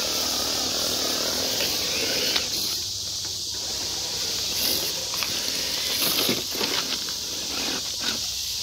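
Steady high-pitched chorus of night insects, with scattered short clicks and scuffs in the second half.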